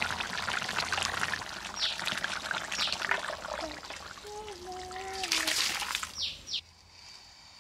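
Thick fish curry simmering in a kadai, then tipped out and pushed with a spatula into a stainless steel bowl, splashing and scraping as it pours. A short squeal is heard about halfway through. The pouring stops abruptly about six and a half seconds in.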